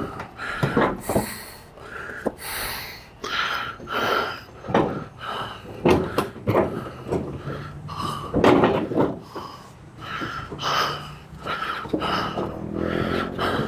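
A wheeled cart carrying a heavy heat press is rolled across wooden deck boards, giving irregular knocks and rattles as the wheels bump over the boards.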